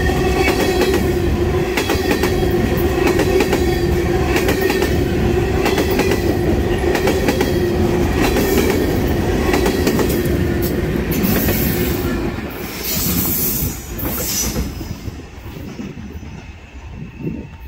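Railroad ballast hopper cars rolling past close by: a steady rumble of steel wheels with quick clicks over the rail joints and a held wheel squeal. The sound weakens after about twelve seconds as the end of the train passes and draws away.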